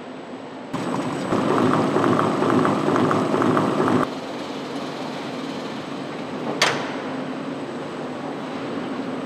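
Car assembly plant ambience: a steady machinery hum. A louder, rapidly clattering stretch starts about a second in and stops abruptly three seconds later, and there is a single sharp click a few seconds before the end.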